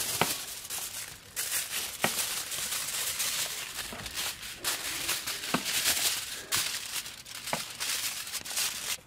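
Aluminium foil crinkling as it is folded and creased by hand, with a few sharp clicks among the rustle.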